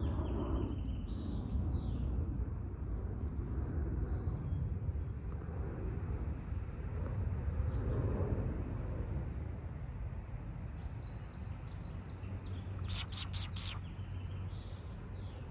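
Outdoor yard ambience: a steady low rumble, with faint bird calls and a quick run of about five short high chirps near the end.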